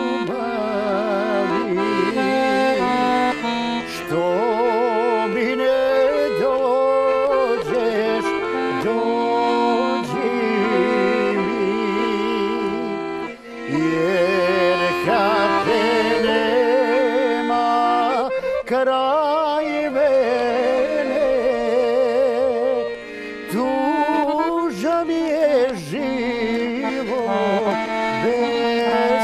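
Live accordion playing a slow song, with a man singing along with a strong vibrato. The music breaks off briefly about halfway through, then goes on.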